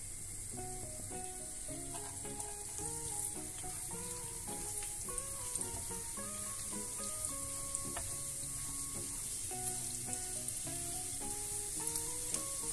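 Minced garlic sizzling in melted butter in a nonstick frying pan, a steady hiss with scattered small crackles, stirred with a silicone spatula. A simple background melody plays underneath.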